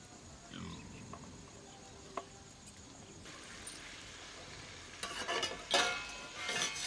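Food frying in an iron karahi over a wood fire: a faint sizzle, then in the last two seconds loud metal clatters and scrapes of a spatula and steel lid against the pan.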